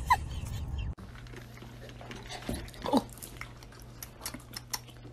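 Rottweiler smacking and licking its lips and chewing after tasting something spicy: a run of faint, irregular wet clicks.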